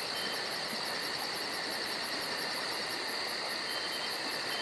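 Insects chirping: a very high-pitched pulsing trill at about six pulses a second, with a steady high whine and hiss beneath it.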